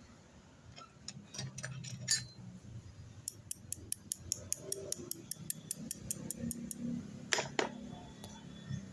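A run of light, hard clicks, evenly spaced at about five a second for a few seconds, after a handful of scattered clicks; two louder knocks come near the end.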